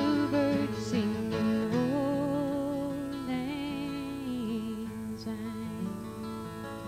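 Steel-string acoustic guitar strummed under a woman's voice singing long held notes with vibrato, the music dying away toward the end.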